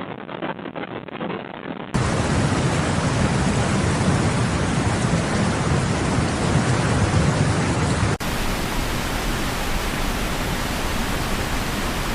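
Loud steady rushing of water, heaviest in the low end, cutting abruptly to a fuller, louder rush about two seconds in and changing again about eight seconds in.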